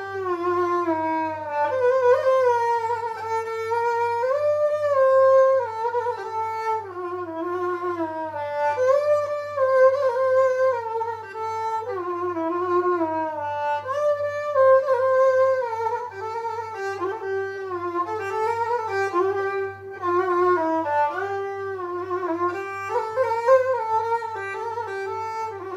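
Solo violin, bowed, playing an Arabic song melody as a single line that slides between notes. A steady low hum runs underneath.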